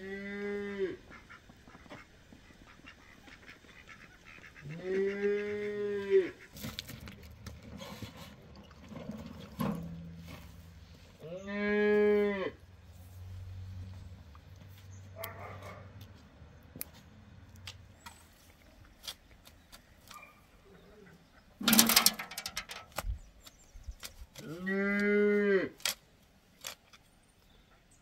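A cow mooing four times, each moo about a second long and well spaced. Sharp clanks of a shovel against a metal wheelbarrow stand out about two-thirds of the way through, while manure is being shovelled.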